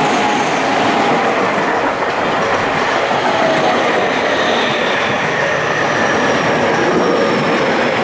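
Electric commuter train passing close by at a level crossing: a loud, steady rumble and clatter of wheels over the rails. The crossing's warning bell sounds under it.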